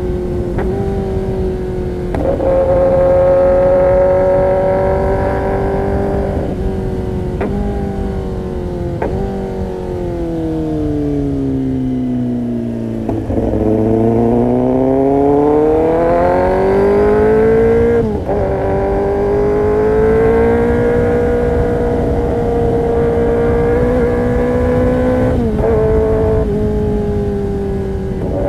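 Kawasaki ZX-10R inline-four engine through an Arrow Pro-Race competition exhaust, running continuously with the revs shifting up and down at a series of gear changes. The pitch falls steadily to its lowest about twelve seconds in, then climbs again and holds fairly steady toward the end.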